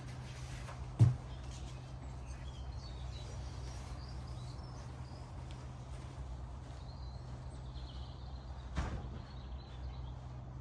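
Faint birds chirping over a steady low outdoor background hum, with a single sharp knock about a second in and a softer one near the end.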